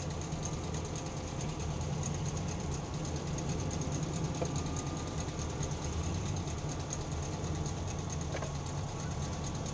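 Air-cooled Volkswagen flat-four engines idling, a steady low rumble, with a faint steady high whine over it.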